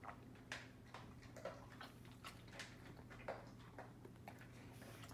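Faint, irregular clicks and taps, a few a second, from dogs' claws on a hard floor, over a low steady hum.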